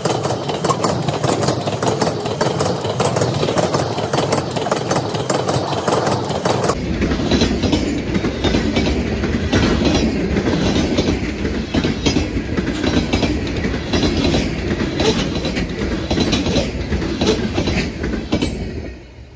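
Freight train of open-top gondola cars rolling past at close range: a steady loud rumble and rattle of wheels and car bodies, with rapid wheel clicks on the rails. The sound falls away sharply near the end as the last car passes.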